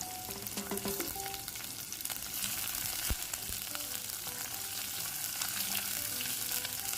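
Chopped garlic and onion sizzling in hot oil in a pot while being stirred, with a steady frying hiss and a few light clicks of the utensil against the pot, one a sharper knock about three seconds in.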